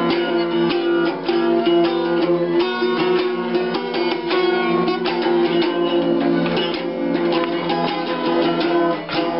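Small acoustic guitar strummed in quick repeated strokes, chords ringing on continuously as a song is played.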